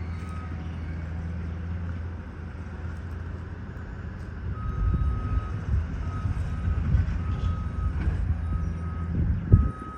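Heavy vehicle engine running with a back-up alarm beeping on and off, mostly in the second half. A sharp knock just before the end.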